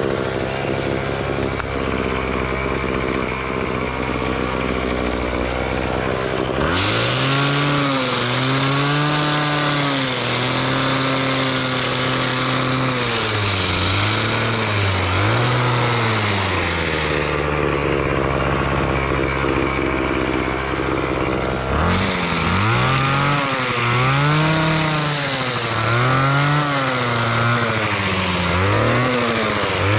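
Craftsman gas-powered pole trimmer engine idling steadily, then from about seven seconds in revved under the throttle, its pitch rising and falling again and again. Near the end the revs go up and down about once a second.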